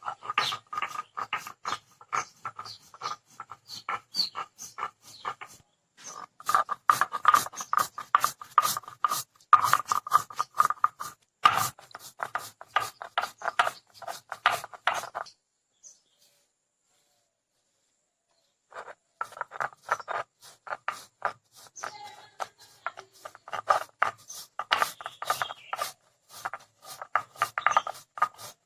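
Mango being worked by hand in food preparation: rapid, repeated short cutting or scraping strokes. They stop for about three seconds a little past the middle, then go on.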